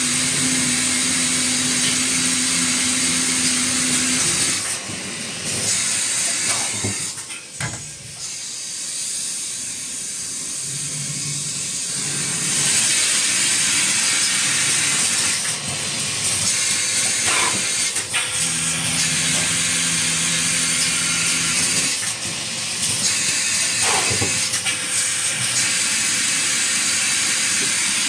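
XY AI 398D toilet-paper bundle packing machine running: a steady hiss with a low hum during the first few seconds and again about two-thirds of the way through, a quieter spell about a third of the way in, and a few sharp clicks.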